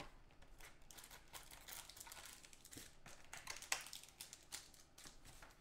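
Faint crinkling and rustling as a trading-card box is opened and the wrapped packs inside are handled, with many small crackles and light scrapes.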